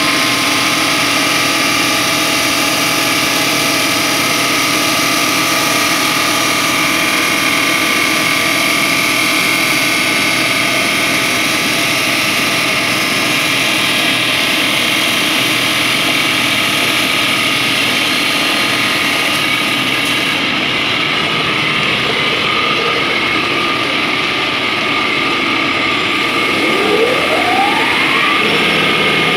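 Breton Huracan multi-blade slab saw cutting a 12 mm ceramic slab, its saw heads running with a steady, loud whine made of several held tones over a dense grinding noise. Near the end, a tone rises in pitch over about a second and a half.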